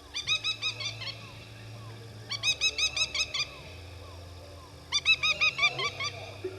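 An unidentified animal calling: three bursts of about eight rapid, high, chirping notes, each burst about a second long, repeating every two and a half seconds or so.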